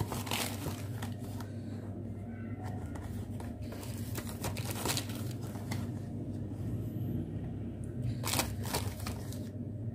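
A few short rustles and light taps of a plastic packet as cornflour is shaken out of it onto vegetables in a glass bowl, over a steady low hum.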